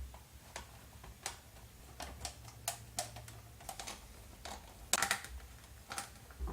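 A screwdriver working out the small screws holding the plastic body on a remote-control car: irregular sharp clicks and ticks, the loudest about five seconds in.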